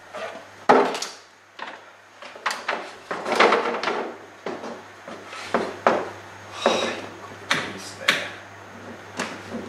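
Irregular knocks, clicks and rustling from electrical cable and tools being handled and fitted at a wall-mounted distribution panel, over a faint steady low hum.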